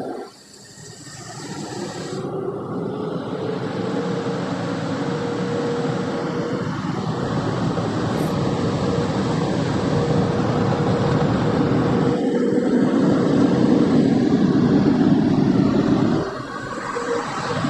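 Automatic car wash drying-chamber air blowers blowing on the car, heard from inside the cabin. It is a loud rush of air with a steady whine. It builds up after a brief lull at the start and dips briefly near the end before rising again.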